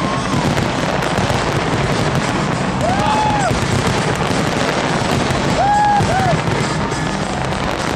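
Fireworks display going off: a dense, continuous crackle of popping bangs. Two short whistling tones rise and fall, about three seconds and six seconds in.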